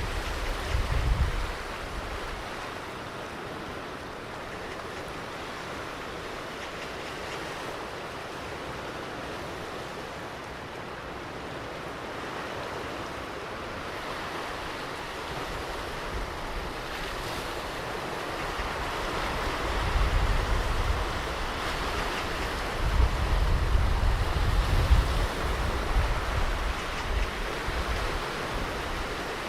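Ocean surf washing onto a beach, a steady hiss of breaking water that swells in the last third. Low gusts of wind buffet the microphone near the start and again for several seconds later on.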